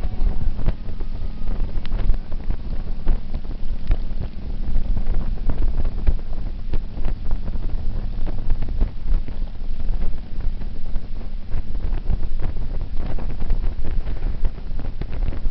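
Heavy wind buffeting on the microphone over the low rumble of a touring motorcycle riding at road speed, steady throughout.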